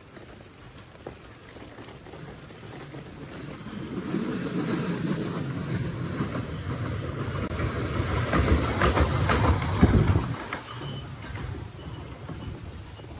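The Wulai tourist trolley's small rail cars rumbling and clattering along their narrow track, growing louder over several seconds to a peak of rattling about ten seconds in, then quickly falling away as they pass.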